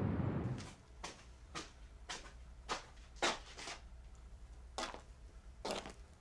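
A steady noise cuts off about half a second in. After it comes a run of sharp knocks or clicks in a small room, unevenly spaced, about one or two a second.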